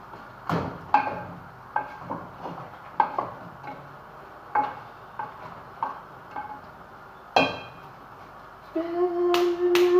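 Metal spoon clinking against a cooking pot while the chicken adobo is stirred: about a dozen sharp knocks, each ringing briefly. Near the end a steady pitched tone sounds for about two seconds.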